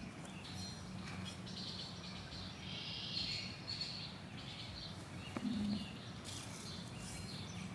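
Small birds chirping repeatedly over a low steady hum, with a single brief knock about five seconds in.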